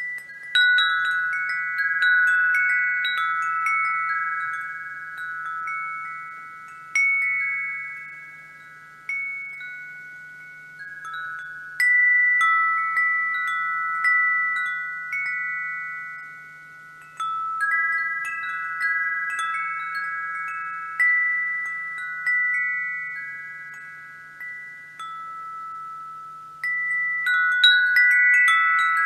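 Wind chime ringing: its tubes struck in irregular clusters of clear, overlapping high tones that fade over a few seconds before the next strikes, with a busier run of strikes near the end.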